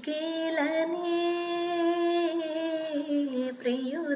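A woman singing unaccompanied, holding long wordless notes with small pitch bends and brief breaks, the opening phrase of a Telugu film song before its first lyric.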